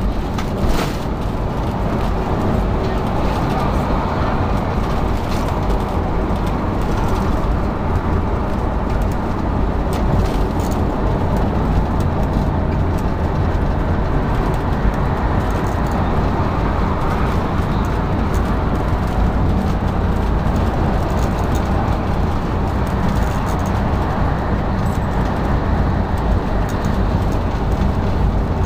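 Steady road and engine noise heard from inside a motorhome driving on a freeway: a continuous low drone of tyres and engine, with a few short rattles near the start.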